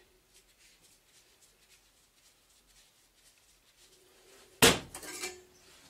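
Metal parts of a New tronic oil burner's head being handled on a workbench: faint small clicks, then one sharp metallic clunk with a short rattle after it near the end, as the loosened assembly comes apart.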